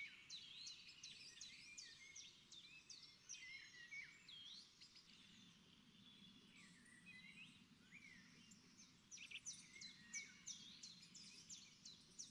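Faint birdsong: a steady run of short chirps and trills from small birds.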